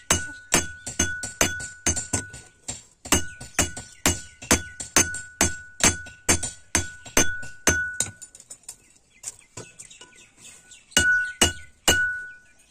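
Hand hammer forging a hot steel knife blade on a railway-rail anvil, about two blows a second, each with a bright metallic ring. The blows pause briefly near three seconds, turn soft and scattered from about eight seconds, and come back strong and ringing near the end.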